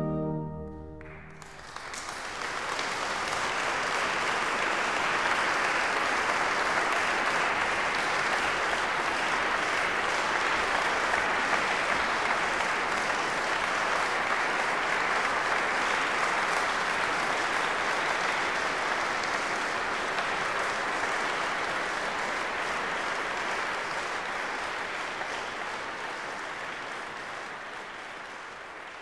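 A final pipe-organ chord stops about a second in, and an audience then applauds steadily, the applause slowly dying down near the end.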